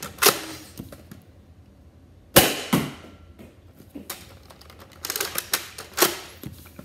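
Nerf Rival foam-ball blaster firing three sharp shots a few seconds apart, the loudest about two and a half seconds in. A quick run of smaller clicks comes just before the last shot as the blaster is primed.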